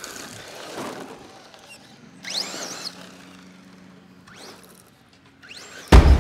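Radio-controlled short-course truck driving on a dirt track, its motor whine rising and falling in pitch a few times over a faint background hiss. Loud music with heavy drums comes in just before the end.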